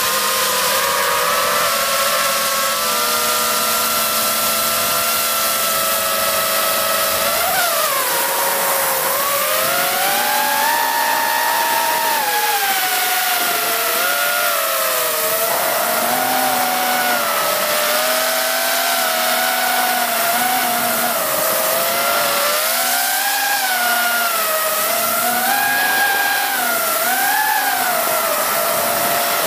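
FPV quadcopter's motors and propellers whining, the pitch rising and falling with the throttle: held fairly steady at first, then a sharp dip and climb about eight seconds in, and wavering up and down after that, with hissing air noise underneath.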